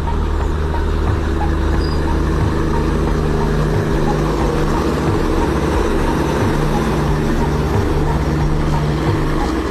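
Diesel generator sets of an old Indian Railways ICF generator (power) car running steadily, giving a loud, constant low drone with a faint regular ticking.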